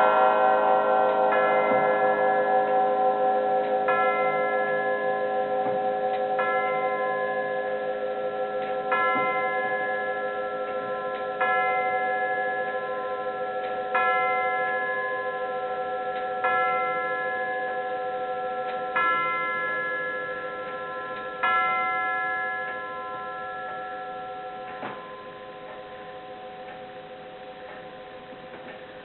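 Herschede Model 230 tubular-bell grandfather clock striking the hour. The last notes of the chime melody ring away, then one tube is struck the same note about every two and a half seconds, eight or so times, each stroke ringing on and fading. A faint click comes near the end.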